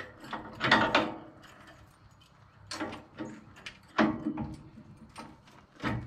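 Steel latch on a newly built brush guard being worked by hand: four or five separate metal clanks and clicks, each with a short ring. The freshly mounted latches are still stiff and hard to open.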